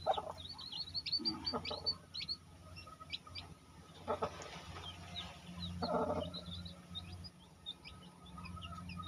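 Day-old chicks peeping, many short high chirps repeated throughout, with a few lower, longer calls in between over a steady low hum.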